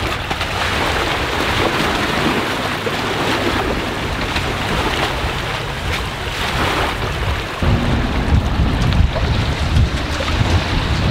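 Strong wind buffeting the microphone over small waves lapping at a lake shore. About two-thirds of the way through, the low rumble suddenly gets heavier.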